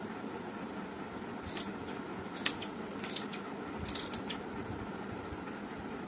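Scissors snipping through cloth: a run of short cuts in the middle seconds, one with a sharp click, over a steady background hum.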